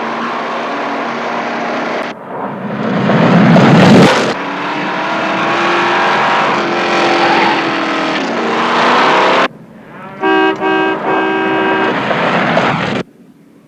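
A big 1950s sedan's engine running hard at speed over dirt, with tyre and road noise, swelling to its loudest a few seconds in. About two-thirds of the way through, a horn honks in a few short blasts, and the car sound cuts off suddenly near the end.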